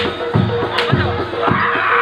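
Live reog gamelan accompaniment: drums beating steadily about twice a second over sustained held tones, with a short burst of noise near the end.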